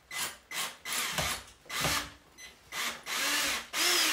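Worx 20V cordless drill-driver driving a screw into a wall plug in a series of short trigger bursts, the motor spinning up and down each time. The bursts get longer toward the end.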